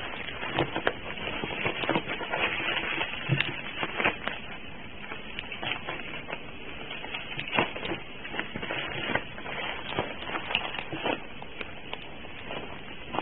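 Bubble wrap being cut with a knife and pulled open by hand: steady crinkling of the plastic, with irregular sharp crackles.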